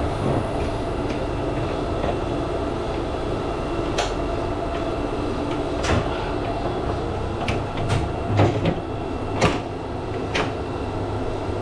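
Sharp plastic clicks and knocks, about seven of them and most in the second half, as the mini split indoor unit's filters and cover pieces are handled and snapped back into place, over a steady machinery hum.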